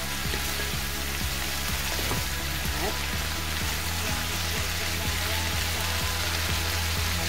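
Sliced cabbage, zucchini and peppers sizzling in a frying pan as they are stirred with a wooden spatula, over background music.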